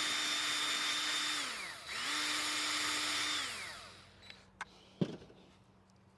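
Power tool spinning a wire brush to strip paint overspray off a bolt. It runs at a steady speed, is let off and spins down, starts again about two seconds in, then winds down near the four-second mark. A few sharp clicks follow, the loudest a knock about five seconds in.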